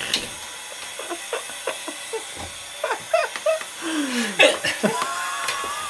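Laughter mixed with a man's short, repeated hiccups. The laughing grows denser in the second half, with one long falling whoop near the end.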